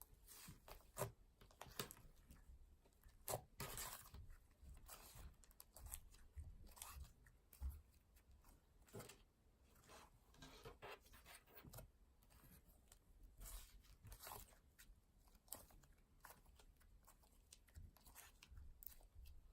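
Slime being squished and stretched by hand, giving faint, irregular little clicks, pops and crackles.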